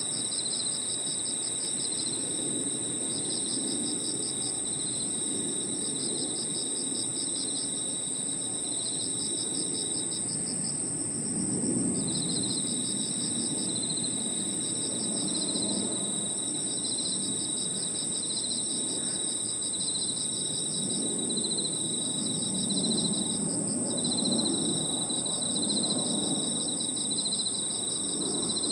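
Chorus of crickets and other insects: several overlapping trills, one steady and very high, one pulsing, and one lower that falls silent for about two seconds around ten seconds in and briefly again near the end, over a faint low background rumble.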